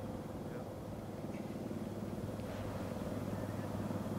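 Steady low engine hum, even throughout, with no shots or impacts.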